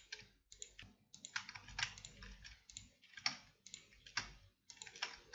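Computer keyboard being typed on: an irregular run of faint key clicks, a few a second, as lines of code are entered.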